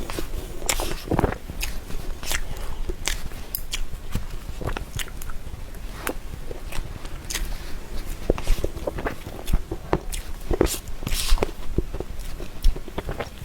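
Close-miked chewing of a soft cream dessert: many short, irregular mouth clicks and smacks.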